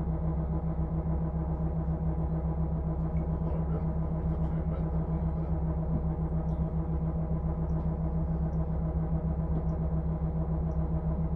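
Volvo running steadily at the radiator end of the engine bay: an even, unchanging hum at a constant pitch.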